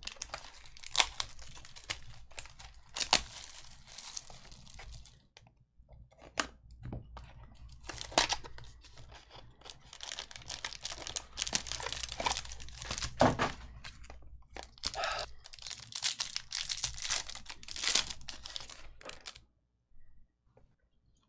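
Hockey card packs being torn open, their wrappers crinkling, in a run of irregular tearing and rustling that stops shortly before the end.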